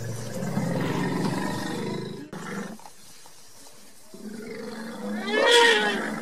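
A lion growling and roaring low and rough, cut off abruptly about two seconds in. Near the end, after a quieter stretch, comes a louder animal call that rises and falls in pitch.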